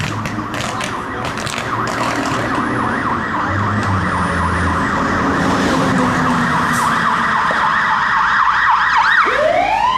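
Fire engine siren growing louder as the engine arrives: a fast warbling wail, then near the end a siren winding up in a rising wail.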